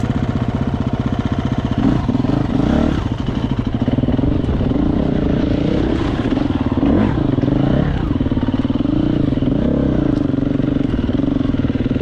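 KTM enduro motorcycle engine running under way off-road, the revs rising and falling with the throttle several times.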